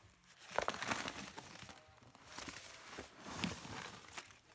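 Paper rustling and crinkling as stacks of banknotes and a cardboard box of wrapped coin rolls are handled, in two bursts: about half a second in, and again after two seconds. A sharp tap comes near the end.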